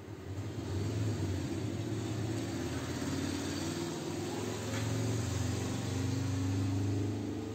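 An engine running with a low, steady hum that swells about half a second in and eases off near the end.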